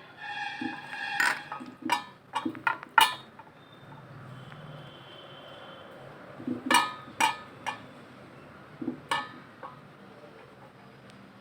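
A metal spoon clinking and tapping against a metal cooking pot while biryani is layered in it: a quick run of strikes in the first three seconds, the first ones ringing briefly, then a few more clinks later on.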